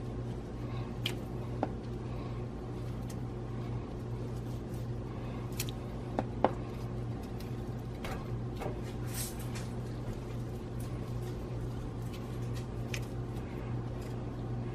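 Sliced beef warming in a skillet of beef broth on low heat: soft wet simmering over a steady low hum, with a few light clicks, the sharpest about a second and a half in and again about six seconds in.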